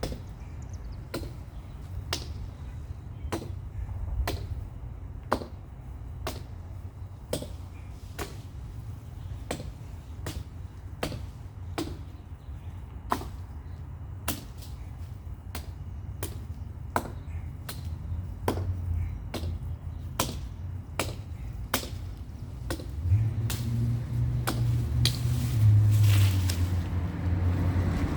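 Steady series of sharp chopping blows, an axe striking a tree limb about once a second. In the last few seconds a vehicle engine's low hum rises underneath.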